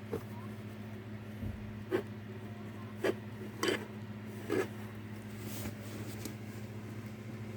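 A few soft clicks and rubbing noises at irregular intervals, roughly one a second, over a steady low hum.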